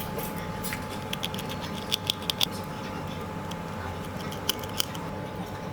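Small hand tools clicking and tapping during a phone board repair: a quick run of sharp light clicks about two seconds in and two more near the end, over a steady background hum.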